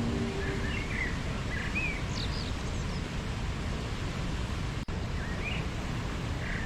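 Steady rush of a waterfall with small birds chirping in short, quick calls, a cluster in the first couple of seconds and more about five seconds in. The sound cuts out for an instant just before five seconds in.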